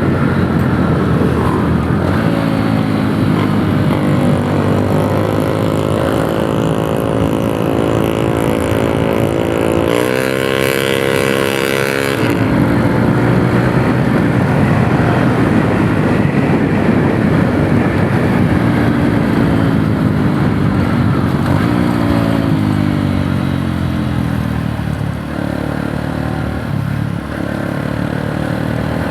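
Yamaha YTX 125 single-cylinder four-stroke motorcycle engine running under way, its pitch rising and falling as it accelerates and shifts. There is a brief louder, higher-revving stretch about ten seconds in, and the pitch falls as it slows past twenty seconds.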